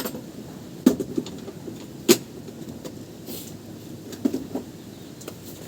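A few sharp knocks and clicks, irregularly spaced, the loudest about two seconds in, over a faint steady background.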